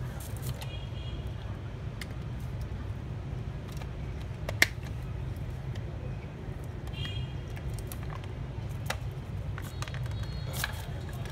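Scattered plastic clicks and knocks from a drill's motor and gearbox being handled and seated in its opened plastic housing, with one sharp click about four and a half seconds in, over a steady low background rumble.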